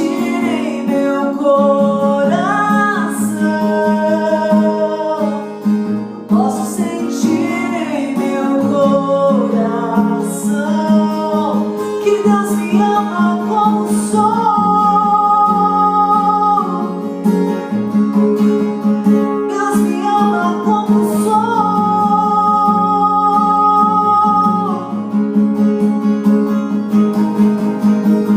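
Music: acoustic guitar with a melody of long held notes over a steady low drone.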